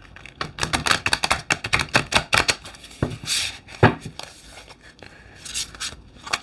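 A tarot deck being shuffled by hand: quick runs of cards flicking against each other, with a sharp knock a little before four seconds in.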